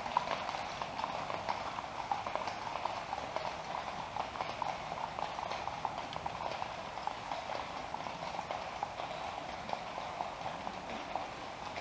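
Hooves of a group of Icelandic horses clip-clopping at a walk on a paved lane, many overlapping hoofbeats in an irregular patter that slowly grows fainter.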